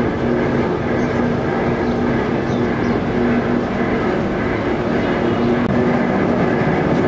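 Cotton seed oil mill machinery running: a steady, loud mechanical din with a constant hum under a dense rattle.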